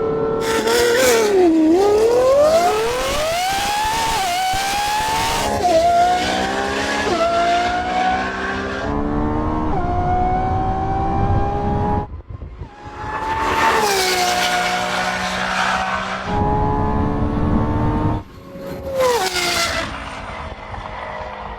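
A supercar engine at full throttle, its pitch climbing and dropping back at each upshift several times, then lifting off about twelve seconds in, followed by two more hard bursts of throttle.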